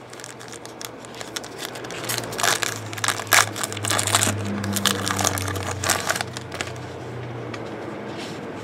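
A trading-card pack's foil and plastic wrapper being torn open and crumpled by hand: a run of crinkling crackles, heaviest in the middle, with a low hum underneath.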